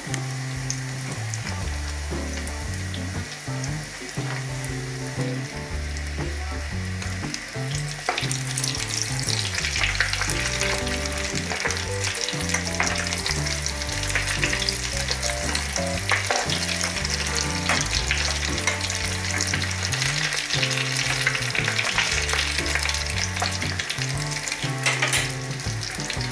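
Breaded chicken drumsticks deep-frying in a small pot of hot oil: a steady crackling sizzle that grows louder about a third of the way in.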